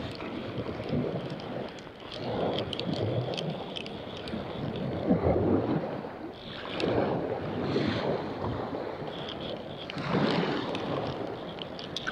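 Wind buffeting the microphone in uneven gusts, with jacket fabric and gloves brushing close against it and scattered small ticks.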